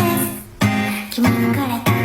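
Background music: a song with singing over plucked guitar, with a short break about half a second in.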